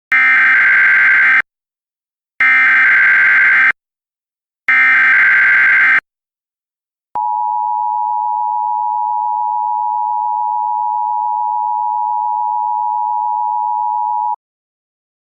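Emergency Alert System activation: three short bursts of digital SAME header data, each about a second and a half long with a second's gap between them. Then comes the steady two-tone EAS attention signal, held for about seven seconds before it cuts off. Together they announce that a new emergency message is about to be read.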